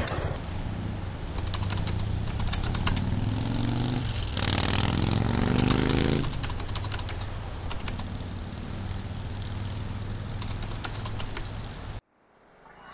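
KRN scooter's engine running while riding, over steady wind and road noise, its pitch rising as it accelerates about four to six seconds in. Bursts of rapid crackling clicks come and go throughout. It cuts off abruptly near the end.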